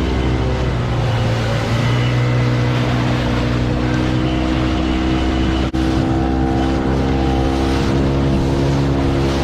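Outboard motor running steadily, driving a small inflatable boat, with one momentary break in the sound just over halfway through.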